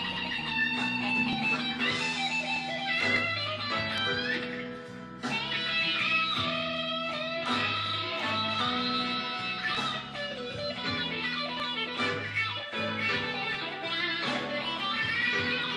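Electric blues guitar solo on a Fender Stratocaster: single-note lead lines with string bends over a steady, repeating low backing line.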